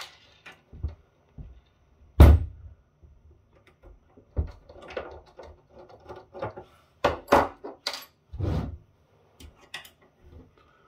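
Hand screwdriver working screws out of a steel appliance case: scattered knocks and small metal clinks and clatters as the tool and loose screws and parts touch the case and table. There is one loud thunk about two seconds in and a run of clatters from about seven to eight and a half seconds in.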